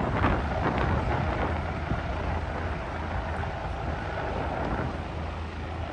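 Wind buffeting the microphone over a steady low engine rumble.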